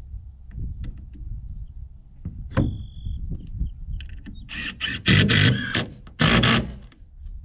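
Cordless drill run in three short bursts, driving a screw into wood trim, after some knocks and handling.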